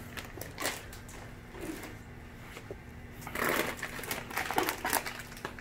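Clear plastic bags crinkling and rustling as hands dig through the plastic liner of a shipping box, loudest a little after three seconds in.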